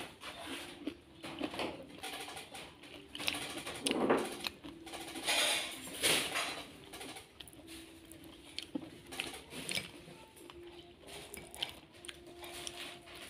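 Crispy batter-fried corn fritters crackling and crunching as they are broken and eaten, in irregular bursts of crisp snaps, loudest a few seconds in. A faint steady low tone sits behind.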